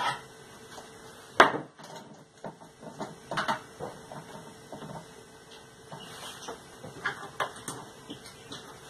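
Intermittent clinks and knocks of tools and plumbing parts being handled while a garbage disposal is fitted under a sink, with one sharp loud knock about a second and a half in.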